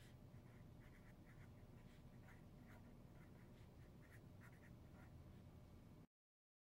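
Faint scratchy strokes of a felt-tip marker writing on paper, short and irregular with each letter, over quiet room hum.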